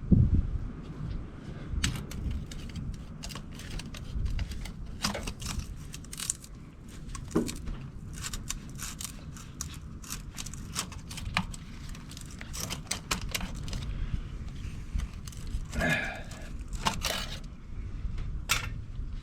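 Hands-on work handling a new spin-on fuel filter and parts: scattered clicks, light scrapes and crinkling, with a louder cluster of rattles near the end, over a steady low rumble.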